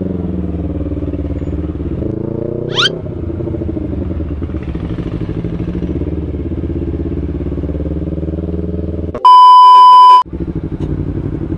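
Motorcycle engine running steadily while riding in slow traffic. The engine rises briefly in pitch about two seconds in, with a short sharp rising sweep. About nine seconds in, a loud steady test-tone beep lasting about a second cuts over it.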